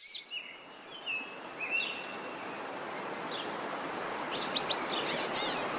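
Small waterfall rushing steadily, growing a little louder, with birds chirping over it: a few whistled calls near the start and a quick run of chirps about four seconds in.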